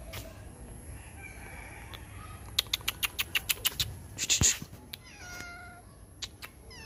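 Young cat meowing from a tree: one falling meow a little after the middle, with another starting at the very end. Before the first meow comes a quick run of about ten sharp clicks, then a short, louder scratchy burst.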